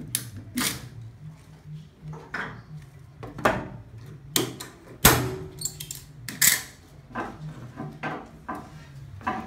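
Irregular knocks and clatter from handling gear on a wooden trailer, about a dozen separate hits with a sharp, loud knock about five seconds in.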